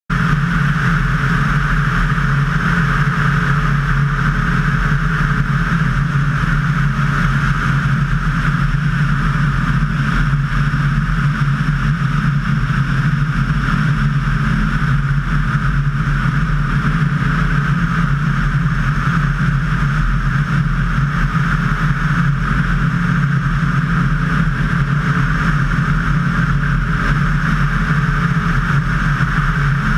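A light aircraft's piston engine and propeller drone steadily in cruising flight, with a constant rush of wind over the outside of the airframe.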